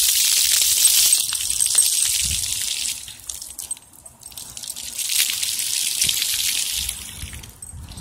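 Thin water jets of a ground-level splash-pad fountain hissing and spattering onto wet pavement. The hiss drops away for a moment about three seconds in, comes back, then fades near the end.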